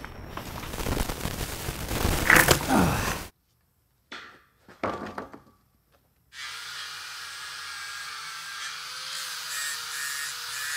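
Heavy knocks and thuds from handling logs and steel tubing, the loudest about two and a half seconds in, then a few sharp knocks after a brief dropout. A steadier, softer sound with faint wavering tones fills the second half.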